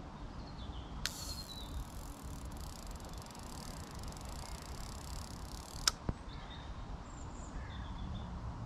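A spinning fishing reel being worked on a pike rod: a click about a second in, then a steady high hiss of line running off or through the reel for about five seconds, ending in a sharp click. Faint birdsong chirps in the background.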